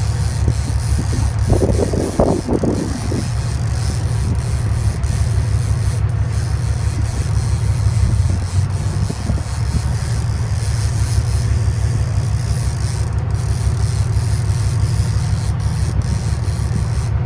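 Boat engine running with a steady low rumble.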